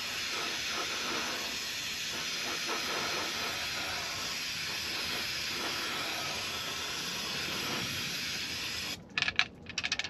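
Aerosol brake cleaner spraying in one long, steady hiss as it flushes out a diesel fuel filter housing. The spray stops suddenly about nine seconds in, followed by a quick run of sharp rattling clicks.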